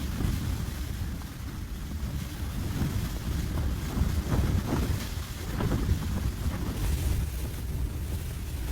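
Blizzard wind gusting and buffeting the microphone: a deep, unsteady rumble that swells and eases, with a few faint brief sharper sounds in the middle.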